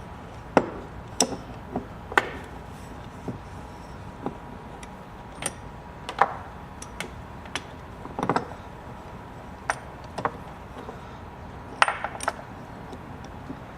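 Hand tools and small metal parts handled on a workbench: irregular sharp clicks, clinks and knocks, roughly one a second, some in quick pairs.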